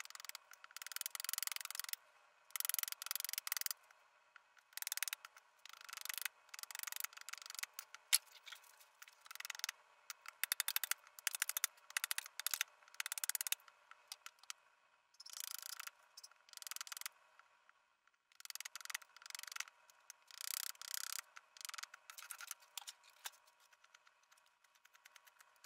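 Small axe hewing a green birch blank in bursts of quick, light strokes, with short pauses between the bursts. Wood chips are being split off the blank as it is roughed into a cup. Near the end the strokes give way to fainter ticks.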